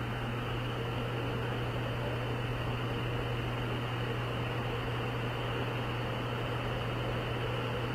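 Steady drone of a transport aircraft's engines heard inside the cargo cabin: a constant low hum under an even rushing noise.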